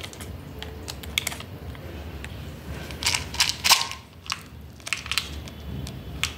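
Scattered light clicks and rustles of hands handling parchment muffin liners and chocolate chips, busiest about three to four seconds in, over a low steady hum.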